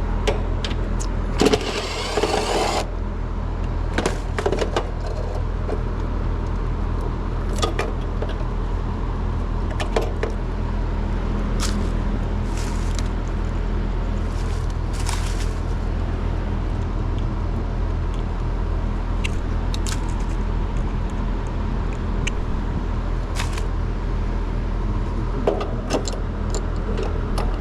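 Steady low hum of running machinery, with scattered small clicks and a brief rustle about a second and a half in, from hands and tools handling wires during hard start kit wiring.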